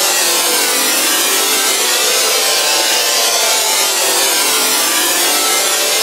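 Vocoder sound effect from Image-Line's Vocodex: a loud, steady drone of many held tones buried in hiss, with slow sweeps running through it.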